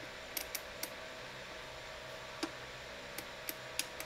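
About eight small, sharp metallic clicks and ticks, scattered unevenly, as snap-ring pliers grip and work a C-clip (circlip) off a shaft of an E153 transaxle. A faint steady hum runs underneath.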